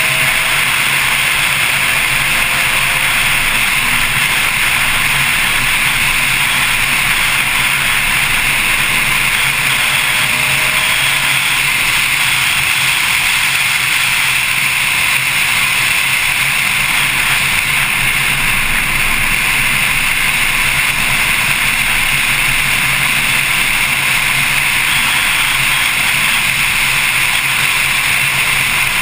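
Porsche 911 Carrera S running at track speed, heard from a camera on its front hood as a steady, loud rush of wind and road noise with the engine note low underneath.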